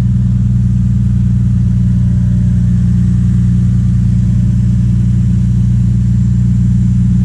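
Diesel engine of a 1995 Mitsubishi MS110 excavator running steadily under hydraulic load while the boom is raised.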